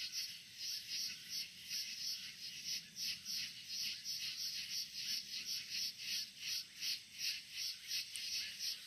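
Outdoor night chorus of calling animals, a steady train of rasping pulses at about three a second.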